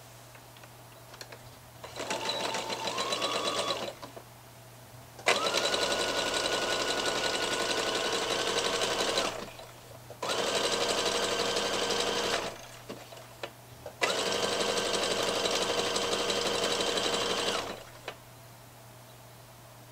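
Domestic electric sewing machine stitching a seam in four stop-start runs of a few seconds each. Each run opens with a quick rise in motor pitch and holds a steady, rapid whir. The first, shorter run speeds up partway through.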